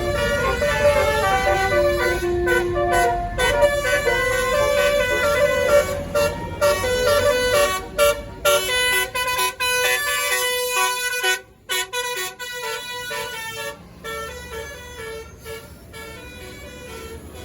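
A tour bus's telolet basuri horn playing a tune of held notes that step up and down in pitch, with the bus engine rumbling underneath at first. The tune breaks off briefly a few times and is quieter in the last few seconds.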